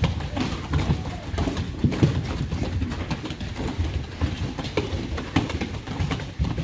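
Many children's bare feet running on foam floor mats and a wooden floor: a dense, irregular run of soft thuds.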